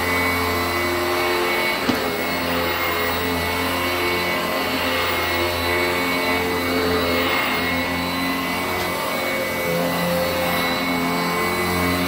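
Sanitaire 886E commercial upright bag vacuum running steadily as it is pushed over carpet, its motor whine holding even, with a single sharp click about two seconds in.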